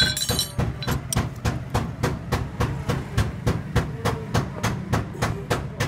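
Rapid, even mechanical knocking, about five clicks a second, over a steady low hum: a machine running nearby.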